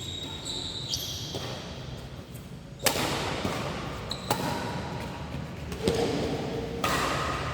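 Badminton rally in a hall: sharp racket hits on the shuttlecock, one about every second to second and a half, with short high squeaks near the start.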